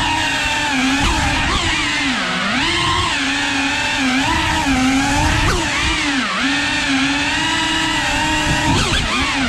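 FPV quadcopter's brushless motors and propellers whining loudly, the pitch repeatedly dipping and climbing as it flies.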